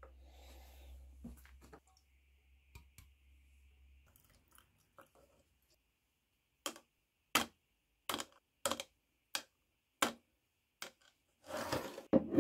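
Small steel bayonet parts dropped one by one from tweezers into a black cup of liquid: about eight sharp clicks spaced roughly half a second to a second apart, then a louder, longer clatter near the end.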